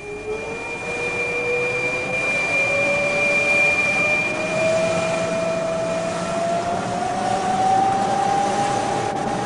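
Metal lathe taking a dry cut on a steel bar without coolant: a steady grinding noise with a whine that rises slowly in pitch, and a thin high tone that fades out about six seconds in. Cutting dry, friction is overheating the cutting tool's tip.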